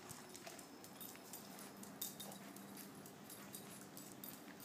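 Faint scattered clicks and scuffs of puppies' and dogs' paws moving about on gravel and paving stones, with one sharper click about two seconds in.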